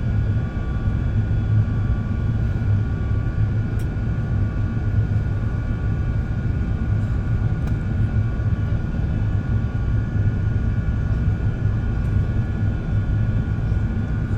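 Steady drone of an airliner's cabin in flight: a low, even rumble of engines and airflow, with faint steady tones above it.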